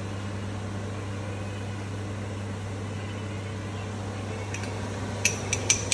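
Steady low hum of a kitchen exhaust fan running, with a few quick clinks of a utensil against cookware near the end.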